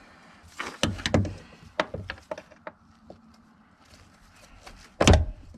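Metal knocks and clicks as the cut-off old hinge pin and bushing are driven down out of a Chevy Tahoe's door hinge: a cluster of sharp knocks in the first three seconds and one loud knock about five seconds in.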